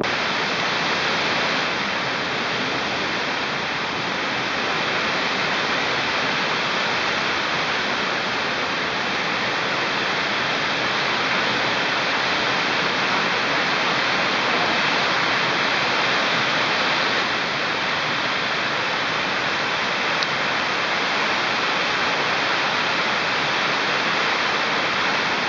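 Steady, even roar of hurricane wind and driving rain, with a faint steady high tone running through it.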